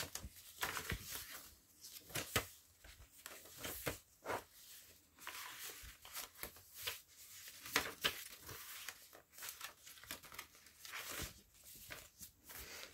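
Paper pages of a handmade hardcover junk journal being turned and handled: a run of short, crisp rustles and crinkles, one after another.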